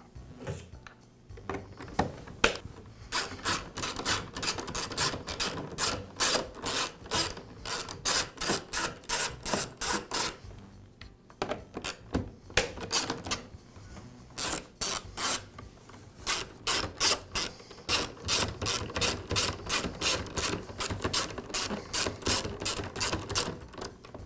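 Socket ratchet clicking in steady runs of about three clicks a second, with a short pause about halfway through, as it backs out the fastener holding the plastic fuel-tank strap to the blower frame.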